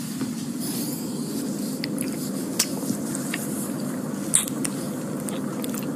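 Close-up kissing: scattered short, wet lip smacks and sucking clicks over a steady low background hum.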